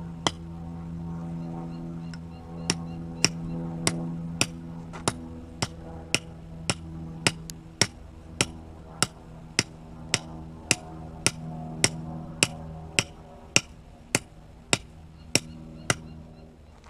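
The edge bevel of a Dawson Raider 5 fixed-blade knife chopping into a concrete block: sharp, regular strikes about two a second, with a pause of about two seconds near the start, stopping shortly before the end. A low steady drone runs underneath.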